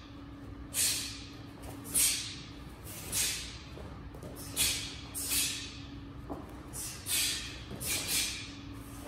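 A short, sharp hiss with each technique, roughly one a second, as two martial artists perform strikes and blocks of a taekwondo form at full speed. A steady low hum runs underneath.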